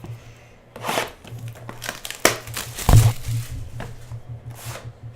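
Shrink-wrap and card packaging crinkling and tearing in irregular rustles as a sealed trading-card box is opened, with a heavier thump about three seconds in.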